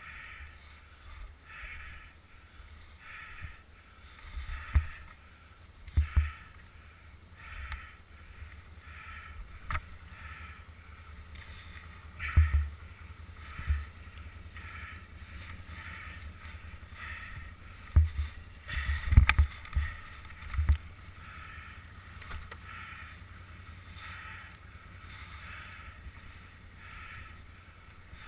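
Footsteps crunching and swishing through deep powder snow in a steady rhythm of about two a second, broken by several sharp thumps against the camera.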